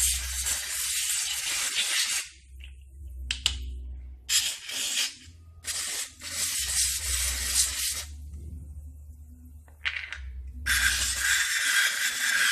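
Aerosol can of carburettor cleaner spraying onto fogging-machine diaphragm parts: four hissing bursts of about one to two and a half seconds each, with a few short puffs between them.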